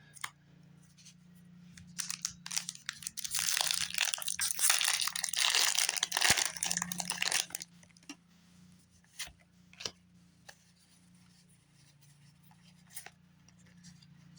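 A foil Pokémon booster pack wrapper crinkling and being torn open for about five seconds, followed by a few light clicks.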